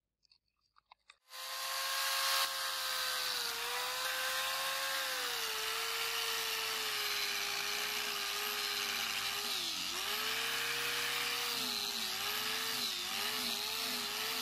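Angle grinder with a 240-grit sanding disc switched on about a second in and running, wet-sanding a steel sword blade. Its whine dips in pitch several times as the disc is pressed onto the blade and recovers in between.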